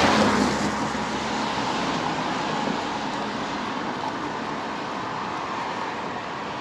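Steady rushing noise of a car on the move, loudest in the first second and then settling to an even level.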